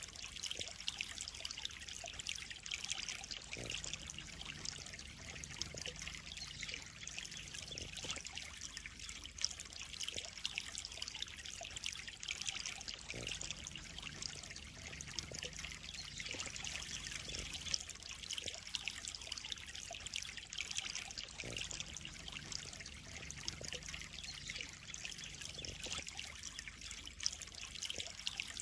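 Water trickling and splashing steadily into a koi pond, a continuous dense patter with small drips and plinks, under a faint low hum that comes and goes every few seconds.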